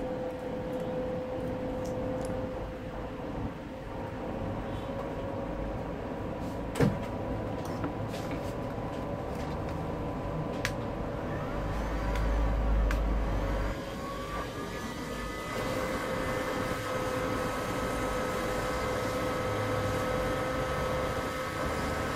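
Hot air rework station blowing steadily, a constant hum with a faint whine that shifts up in pitch about two-thirds of the way through, heating in a new charging port on the phone board. A single sharp click about a third of the way in.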